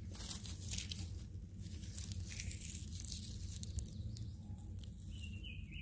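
Scraping and tearing at the fibres of a wax-coated wood-fibre fire starter with a ferro rod striker, fluffing it up to take a spark; irregular scratchy rustles over the first three seconds or so. A bird chirps several times near the end.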